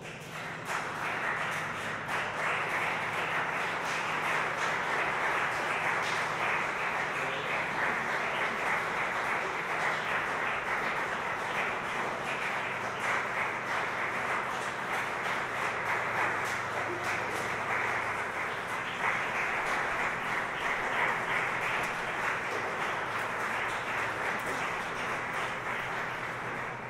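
Audience applauding steadily in a concrete parking garage, tailing off near the end.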